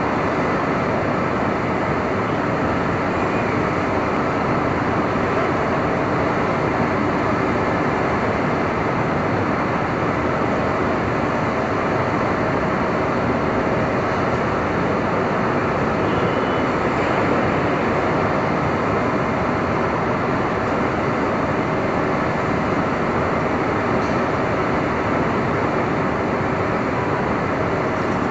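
Steady city street ambience: a continuous wash of traffic noise with no single event standing out.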